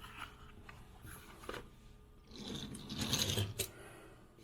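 Handling noise from a cardboard toy box and die-cast model being rubbed and shifted, with a louder scraping rustle about two and a half seconds in and a small click near the end.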